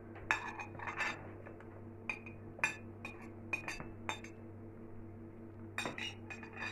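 A metal spoon clinking and scraping against a plate and the rims of glass jars: a dozen or so sharp clinks at uneven intervals, over a faint steady hum.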